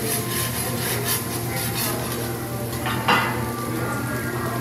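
Metal spatula and fork scraping and turning rice on a hot teppanyaki griddle, with sizzling, then a single metal clang about three seconds in.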